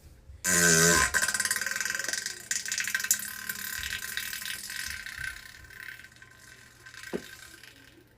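A long, loud fart. It starts suddenly about half a second in with a short pitched blast, then trails off into a rattling sputter that fades over several seconds.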